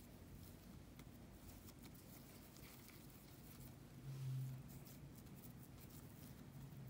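Faint, soft rustling and light ticks of hands pressing and shaping cookie dough onto a ball of bread dough, over a low steady hum that swells briefly about four seconds in.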